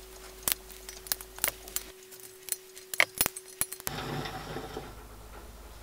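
Light, irregular metallic clicks and clinks of small bronze screws being handled and fitted into a copper boiler dome, about a dozen over four seconds, over a faint steady hum. At about four seconds the clicks stop and a soft steady hiss takes over.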